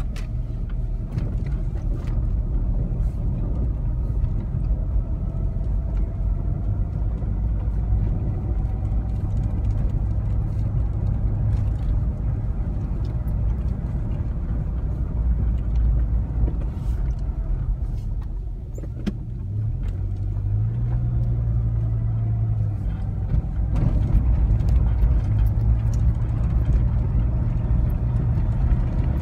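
Car interior while driving slowly: a steady low engine and road rumble, with the tyres running over brick pavement and small rattles and clicks. The engine note drops briefly a little past halfway, then rises again as the car pulls away.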